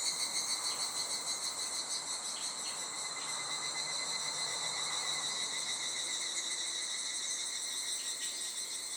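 Insect chorus: several insects trilling steadily in high, rapidly pulsing tones.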